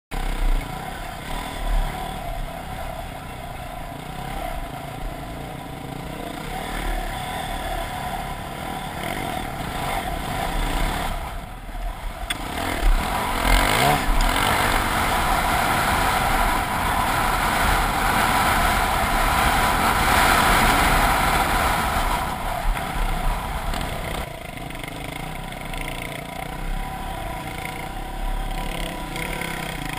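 Dirt bike engine running under way, recorded from the rider's helmet. The revs drop briefly about a third of the way in, then climb and stay higher for several seconds before easing off.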